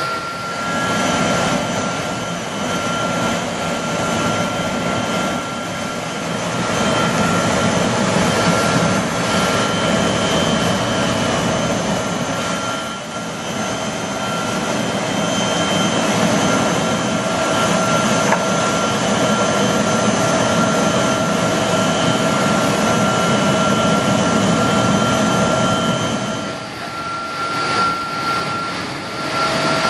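Aircraft turbine running steadily: a rushing noise with a constant high whine.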